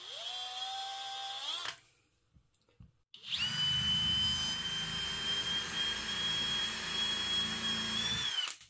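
Hercules brushless cordless drill spinning a budget countersink bit that wobbles and cuts poorly. A short run climbs in pitch and stops just under two seconds in. After a pause, a longer steady whining run of about five seconds follows as the bit is pressed down into a wood block, winding down as it stops near the end.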